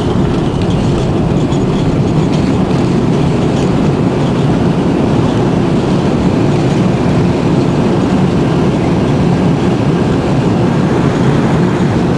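Airbus A330-223's Pratt & Whitney PW4168 engines in reverse thrust, with the rumble of the airliner rolling out on the runway, heard inside the cabin. The sound is a loud, steady, deep rumble.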